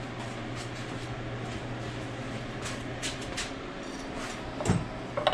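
A few light clicks and clinks of metal transmission parts being handled as the wiring and valve body are worked free of an opened 4L60E, with a sharper knock near the end, over a steady low hum.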